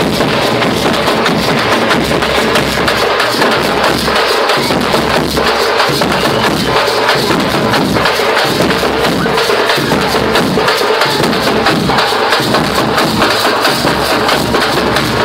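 Street procession drum band playing: large double-headed drums beaten with sticks in a dense, steady rhythm, loud and unbroken.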